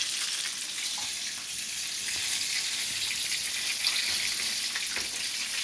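Oil sizzling in a cast iron skillet of frying chicken legs: a steady hiss with a few faint crackles.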